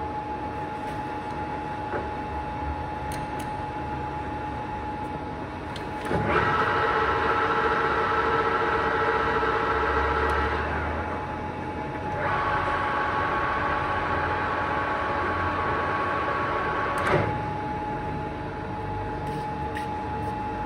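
Ajax gap bed centre lathe running with a steady gear whine. Twice the machine's sound rises to a louder, higher whine for about four and five seconds as a drive is engaged, then drops back, the second time with a sharp clunk as it is knocked out.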